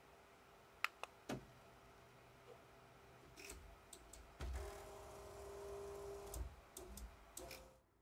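A few faint clicks from the KY-040 rotary encoder knob as Home All is selected. Then the Ender 3 V3 SE 3D printer's stepper motors hum steadily for about two seconds as it homes its axes, with a few light clicks and knocks near the end.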